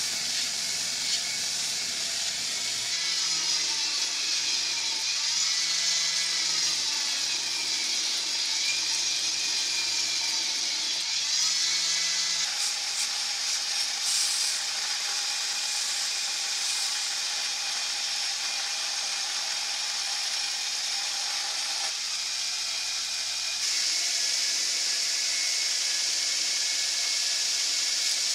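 Belt grinder running with a steel knife blade held against the abrasive belt, a steady high grinding hiss with a faint motor hum beneath. The hiss shifts in pitch and level a few times as the blade is moved on the belt.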